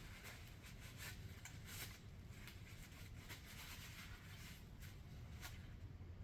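Faint rubbing and a few soft clicks from a paper towel wiping excess pipe dope off freshly threaded plumbing fittings, over a low steady hum.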